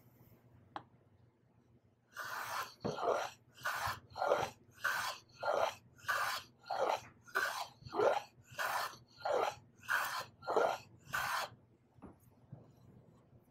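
Stanley bench plane cutting a bevel on a board's edge: about fifteen short, even shaving strokes, roughly one and a half a second, starting about two seconds in and stopping near the end.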